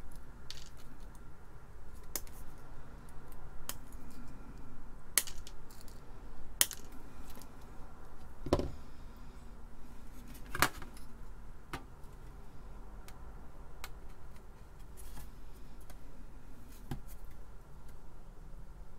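Small components being handled: irregular sharp clicks and ticks as ceramic disc capacitors are pulled off their paper tape and their wire leads are pushed into a printed circuit board, with one duller knock about eight and a half seconds in.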